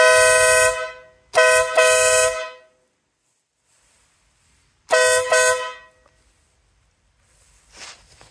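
Newly fitted aftermarket air horn on a 2021 Ural motorcycle, sounding two pitches at once. It gives one blast of about a second, then two quick toots, then after a pause two more quick toots.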